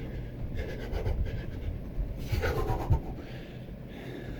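A person panting hard from the exertion of a fast running-in-place drill. Irregular low thuds of quick footfalls on the floor run under the breaths.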